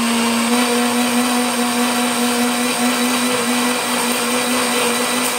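Electric countertop blender running steadily at full speed, its motor holding one even pitch while it purées mint chutney.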